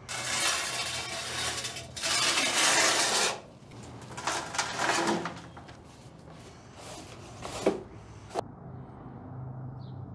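Long-handled floor scraper scraping dried muck off a concrete floor: two long, loud scraping strokes, then shorter scrapes and a couple of sharp knocks. The scraping cuts off abruptly about eight seconds in, leaving only a faint low hum.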